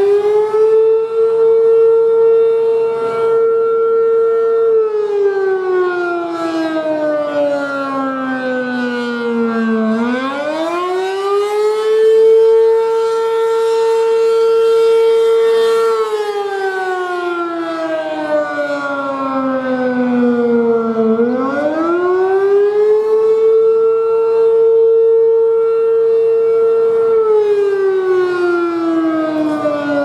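ACA P-10 single-tone rotating electromechanical siren sounding the attack (wail) signal. Its pitch climbs quickly, holds high for about five seconds, then slides slowly down for about five seconds, repeating roughly every eleven seconds. It swells and fades gently as the horn turns.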